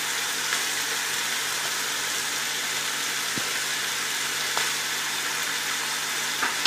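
Frozen mixed vegetables sizzling steadily in hot oil in a frying pan, with a few faint clicks.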